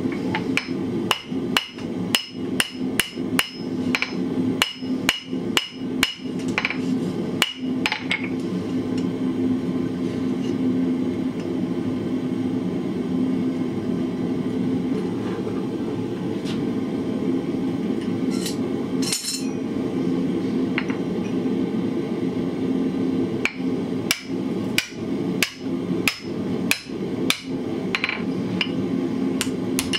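Blacksmith's hand hammer striking iron on the anvil, about two blows a second, each leaving a short metallic ring, as the hole in a bottle-opener blank is punched and drifted. There is one run of blows, a long pause, then a second run near the end, over a steady low hum.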